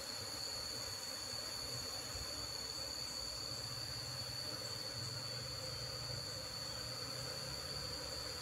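Honeybees buzzing around an opened box hive as the lid is lifted with comb hanging from it, over a steady high-pitched insect drone.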